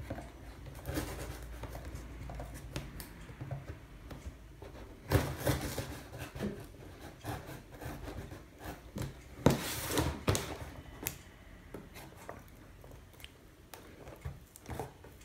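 Utility knife slitting open a cardboard box, with irregular scraping, rustling and small knocks of the cardboard being handled; the loudest scrapes come about five and ten seconds in.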